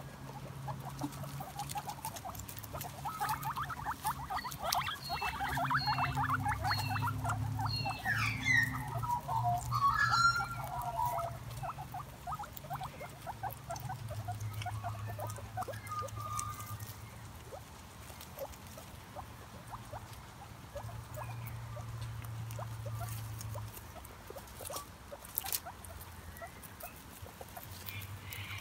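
Guinea pigs chewing grass and rustling through dry leaves, making rapid crunching and clicking, with a few short squeaky calls about eight to eleven seconds in.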